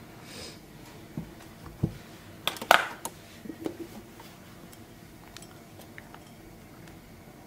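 Hard clicks and taps from an iPad Air and Apple Pencil being handled on a tabletop. A couple of light taps come first, then a cluster of sharp clicks about two and a half to three seconds in, the loudest part. A few fainter ticks follow.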